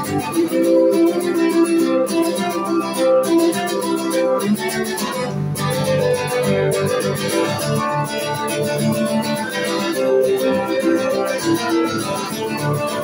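Acoustic guitar played live, chords ringing under regular strokes of the strings.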